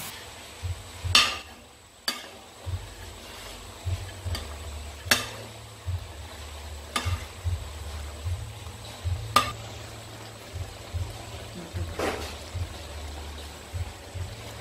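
Metal spatula scraping and knocking against a wok as chopped frog meat is stir-fried and sizzles. A steady hiss runs under several sharp scrapes that come every second or two, the loudest about a second in.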